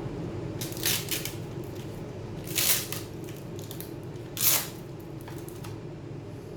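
Three short scrapes of tools or small parts being handled during laptop disassembly, over a steady low hum.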